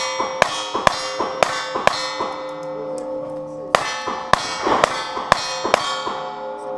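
A rapid string of about a dozen shots at steel targets, each hit followed by the clang of the steel ringing on at several pitches, with a pause of about a second and a half midway.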